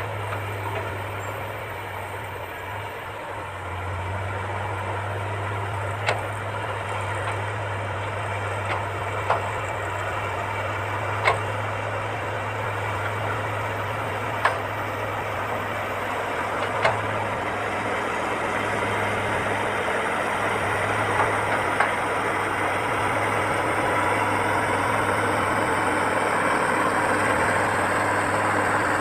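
Heavy earthmoving machine's diesel engine running steadily with a deep hum, building slightly louder near the end. Sharp knocks, like metal striking, come every few seconds through the middle.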